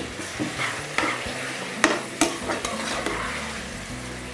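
Raw mutton pieces and onions sizzling in hot ghee and oil in an aluminium pressure cooker, stirred with a slotted steel ladle that scrapes against the pot. There are two sharp clanks of the ladle on the pot about halfway through.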